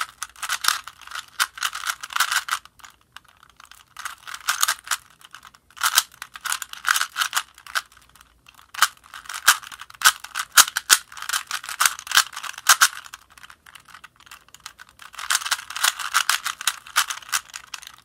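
Original Rubik's brand 3x3 cube being turned by hand: quick runs of plastic clicking and clacking as the layers turn, broken by a few short pauses.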